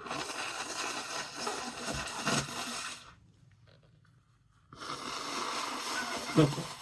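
A person with a congested nose blowing it hard into a tissue, twice: a long blow of about three seconds, then after a short pause a second blow of about two seconds that ends in a brief, louder burst.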